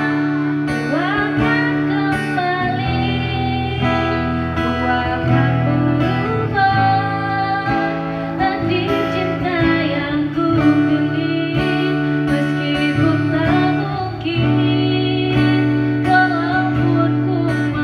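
A song: a voice singing over acoustic guitar, with steady bass notes underneath.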